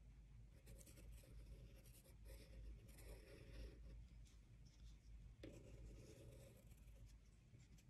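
Faint scratching of a drawing tool on paper, coming in several short runs of strokes over a low steady hum.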